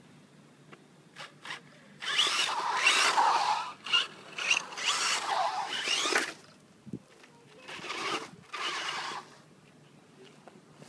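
BSD Racing Flux Assault electric RC buggy's brushless motor whining as the car accelerates and spins its tyres on tarmac, in two loud bursts: a long one about two seconds in and a shorter one near the end.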